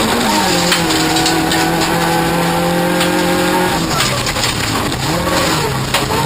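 Toyota Corolla off-road racing car's engine running hard, its pitch dropping sharply just after the start, holding steady for a few seconds, then dropping again and climbing back near the end. Sharp knocks come through now and then.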